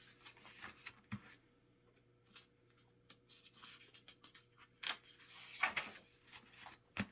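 Paper rustling and rubbing as the album's booklet pages are handled and turned, with soft scattered taps, a longer rustle about five seconds in and a sharp tap near the end.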